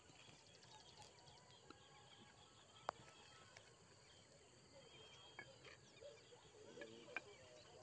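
Near silence: faint outdoor ambience with scattered faint chirps and one sharp click about three seconds in.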